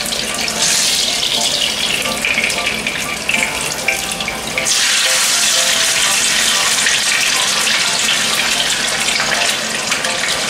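Salmon fillets sizzling as they are laid into hot olive oil in a pan to sear. The sizzle grows louder about a second in and again near the middle as more pieces go in.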